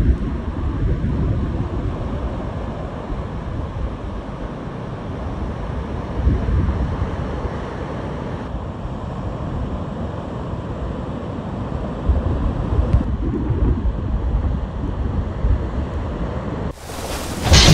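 Strong wind buffeting the microphone in gusts over the rush of heavy breaking surf. Near the end it cuts abruptly to a louder rain-and-thunder sound.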